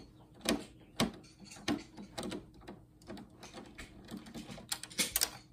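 Irregular clicks and knocks of hand tools against the plastic and metal parts of an old monitor being taken apart. The sharpest knocks come about half a second and a second in, with a quick cluster of clicks near the end.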